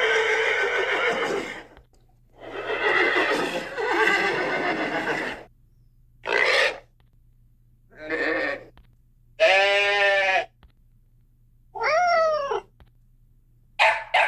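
A run of separate animal calls with short gaps between them, starting with a horse whinnying and going on through pig, sheep, goat and cat calls. The calls before the end are clearly pitched, and one of them falls in pitch.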